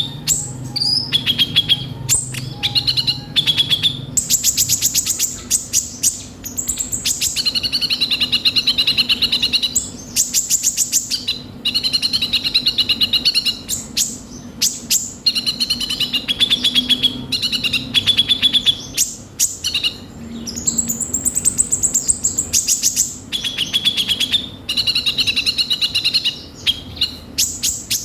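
Sunbird (the 'kolibri ninja') singing a continuous, chattering song full of harsh rough notes, with rapid rattling trills between twittering phrases.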